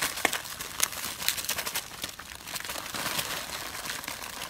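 Plastic snack wrappers crinkling as macaques grab and handle the packets, a dense run of irregular crackles.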